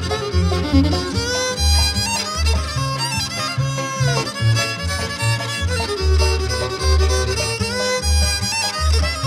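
Instrumental bluegrass from a string band: a fiddle plays the lead with many sliding notes over a steady bass line of separate, evenly paced notes.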